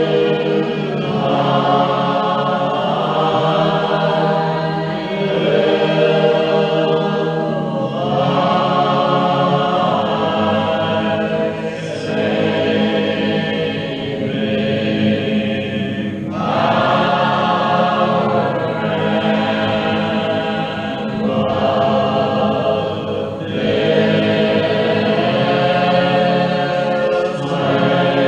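Church congregation singing a hymn a cappella in slow, long-held notes, with brief breaks between lines about every seven or eight seconds.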